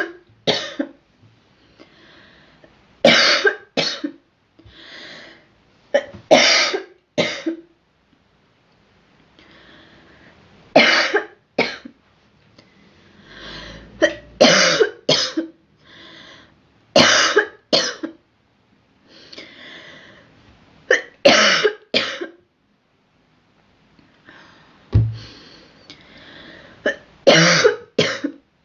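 A girl coughing repeatedly in short fits of two or three harsh coughs, about every three to four seconds, with quieter breaths drawn between the fits.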